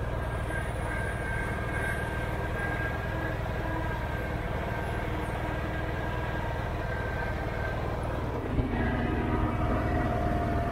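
Ride-on garden tractor engine running steadily as the tractor drives, with a constant whine over a low hum. A short knock comes near the end, after which it runs a little louder.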